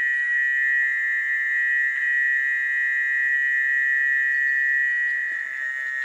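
Dense chorus of frogs calling after rainfall, heard as one steady, high-pitched drone.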